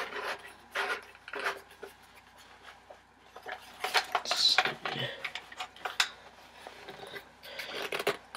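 Irregular clicks, knocks and light rattling of parts being handled and fitted onto a Double Eagle spring MP40 airsoft gun, with a short scrape and a busier cluster of clicks about four to five seconds in.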